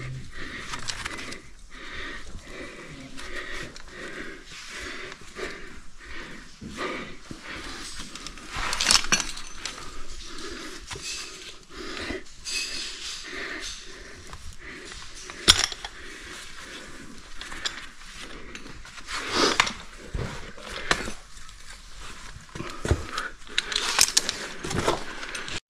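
Caver ascending a rope on mechanical ascenders: metal climbing hardware clinking and jangling, rope and gear rustling, with a few sharper clanks now and then, over hard breathing.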